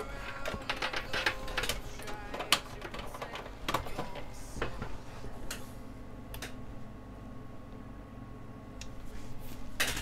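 Rapid, irregular clicks and taps of small hand tools working on a phone's parts on a repair bench, busiest in the first half and thinning out later.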